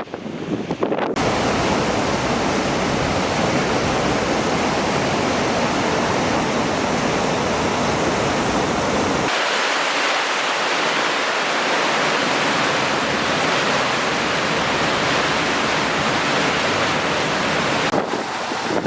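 Loud, steady rush of flowing floodwater. About nine seconds in it changes abruptly to a brighter, hissier rush with less low rumble.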